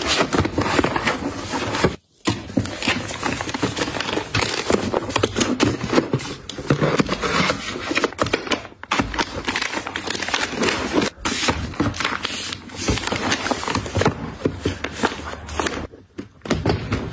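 Plastic sheet-mask sachets crinkling and rustling as they are handled, slid against each other and packed upright into a drawer, with a dense run of small crackles and scrapes that pauses briefly about two seconds in and again near the end.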